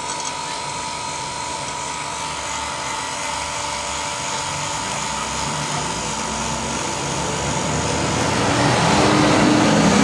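Refrigeration vacuum pump running steadily, pulling a deep vacuum on a refrigerator's sealed system to dry the moisture out of the lines; it grows louder near the end.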